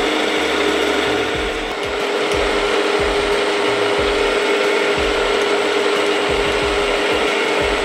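Milling machine spindle running steadily with an end mill cutting an oil groove into a cast-iron lathe carriage saddle: a steady motor whine with a rough cutting noise under it.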